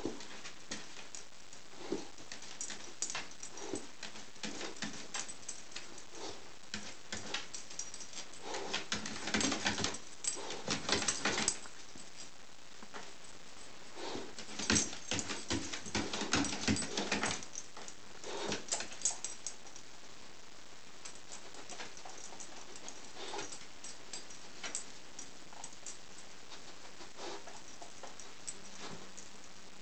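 A dog licking a tiled floor: quick wet tongue clicks and smacks in irregular bursts, busiest around ten seconds in and again around fifteen seconds in.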